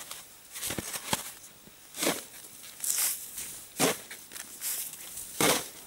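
Shovel digging deep snow: a series of irregular crunching, scraping strokes as snow is cut and thrown aside, the loudest near the end, clearing down to the ice for an ice hole.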